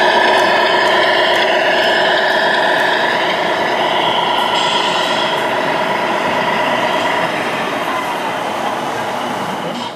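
Tamiya Scania Highline RC model truck driving close past with its trailer, a loud, steady mechanical running noise with several held tones that gradually fades as it pulls away, then cuts off abruptly at the end.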